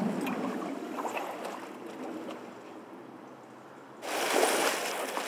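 Quiet shuffling steps, then about four seconds in a sudden louder splashing as feet wade into the shallow water left in the bottom of a swimming pool.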